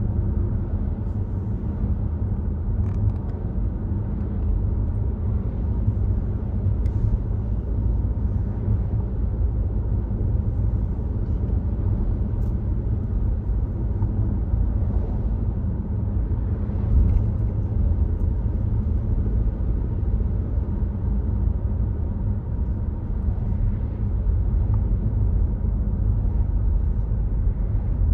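Volvo XC60 driving at a steady pace: a continuous low rumble of tyre, road and engine noise, with a few faint ticks.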